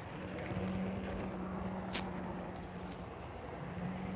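N-scale model train running on its track: a steady hum over a hiss, with a sharp click about two seconds in and a couple of fainter ticks after it.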